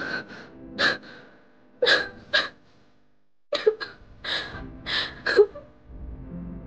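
A young woman sobbing, drawing short, sharp gasping breaths in quick succession, with a brief pause about three seconds in before the gasps start again.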